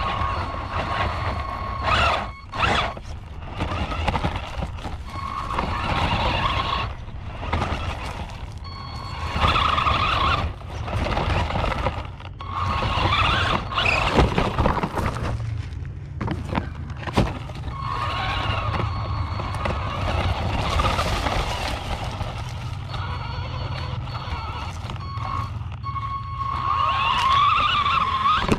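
Hosim RC truck's electric motor whining in spurts that rise and fall in pitch as the throttle is worked. Under it runs the rumble of the truck running over a wooded dirt track, with several sharp knocks as it bounces, picked up by a camera mounted on the truck.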